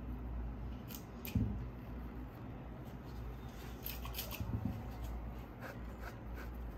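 Hands working a soft clay slab inside a bowl mould: faint handling and rubbing sounds with a few light clicks and taps, a cluster of them around the middle.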